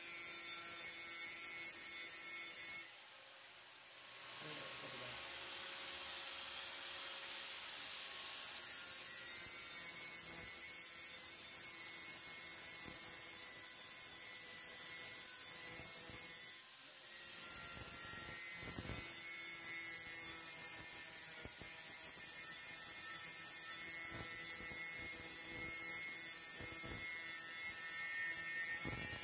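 A steady electric hum with a faint whine over it, dipping briefly about three seconds in and again around seventeen seconds.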